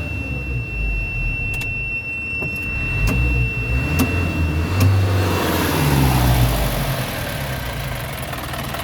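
Isuzu Reward truck engine running at a steady idle, with a thin, steady high-pitched tone over the first half that then stops, and a few sharp clicks.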